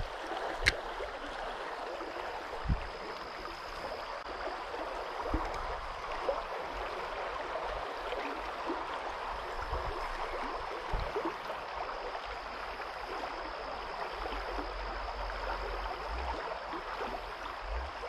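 Creek water running steadily, with a sharp click about a second in and a few soft knocks from handling the rod.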